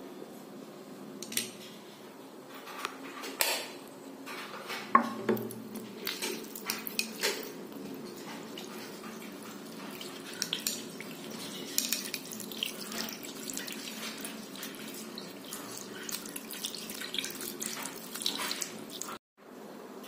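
Tap water running into a ceramic sink while a paintbrush is rinsed under it, with scattered clicks and knocks. The sound drops out briefly about a second before the end.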